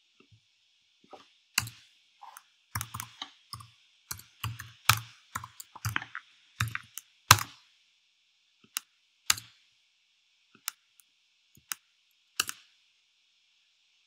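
Typing on a computer keyboard: a quick run of keystrokes over the first half, then a few scattered clicks.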